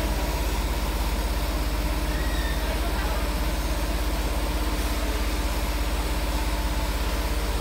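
High-speed multi-needle quilting machine running steadily while stitching straight lines: a fast, even mechanical beat from the needle bar with a steady hum over it.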